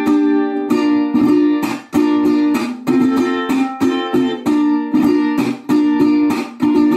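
Mexican five-string vihuela strummed in a huapango rhythm: quick, sharp chord strokes, some chords clipped short, moving through a chord change.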